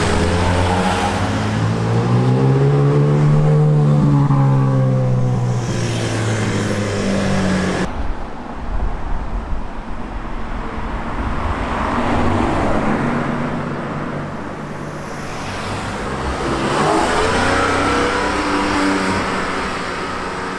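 Cars driving past one after another, their engines accelerating and easing off. The first engine note rises in pitch over the first few seconds and then falls away, and later cars swell up and fade as they pass.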